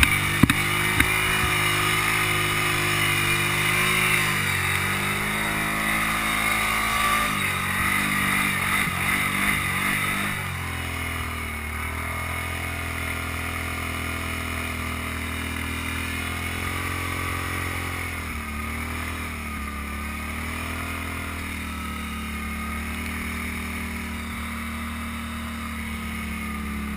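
ATV engine running under throttle while riding, its note rising and falling for the first ten seconds over a rough, rushing noise, with a few sharp knocks at the very start. About ten seconds in it settles to a steadier, slightly quieter run.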